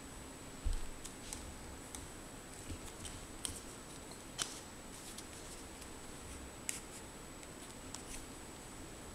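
Handling noise from aquarium air tubing and its plastic suction-cup holders: scattered light clicks and taps of plastic parts, with a soft low thump near the start.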